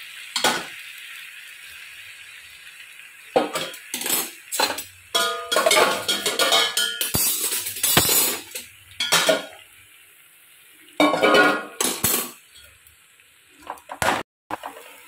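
Oil sizzling steadily in a kadai. Then, from about three seconds in, a metal spoon clanks and scrapes against the pan in a quick run of knocks and clinks as drained macaroni is tipped in and stirred through the sautéed masala.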